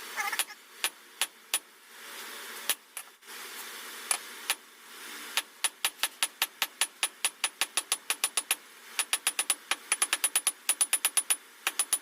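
Hand hammer striking hot 1/2-inch round steel on an anvil, drawing down the neck of a forged hook. A few scattered ringing blows, then steady runs of about four blows a second from about halfway in.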